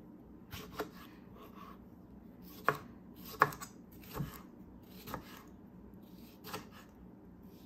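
Kitchen knife slicing a tomato into wedges on a plastic cutting board: a series of separate, irregularly spaced knocks as the blade cuts through and meets the board, about eight in all, the strongest a little under three and a half seconds in.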